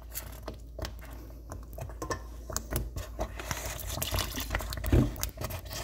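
Thick cornmeal porridge being stirred hard with a spoon in a metal pot to work out the lumps: wet slopping and squelching with irregular clicks of the spoon against the pot. A louder knock comes about five seconds in.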